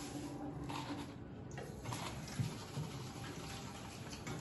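Dishes being washed at a stainless steel sink: faint knocks of metal bowls, with tap water running into a container near the end.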